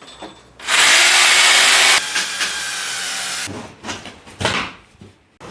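Power drill running, loud for over a second, then a quieter steady stretch, then two short bursts near the end.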